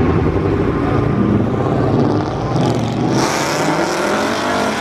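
Car engine revving loudly. About three seconds in the sound changes abruptly and a hissing noise comes in.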